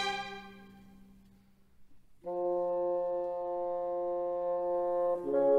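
Background music: a held chord dies away, there is a short pause, then a new sustained chord enters about two seconds in and shifts to another chord near the end.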